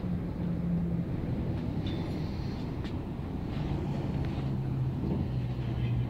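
Portland Aerial Tram cabin running down its cables, heard from inside the cabin: a steady rumble with a low hum that drops to a lower note about halfway through, and a few faint clicks.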